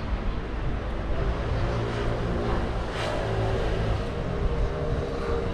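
Street traffic noise: a motor vehicle running nearby, with a steady engine hum from about halfway through over a low rumble. A short click comes about three seconds in.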